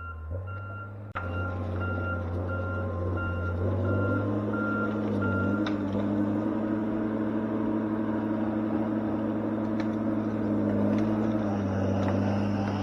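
Heavy logging machine's diesel engine running steadily, with a backup alarm beeping at an even rate from about a second in until about halfway through, as the machine backs up. The engine picks up a little just before the beeping stops.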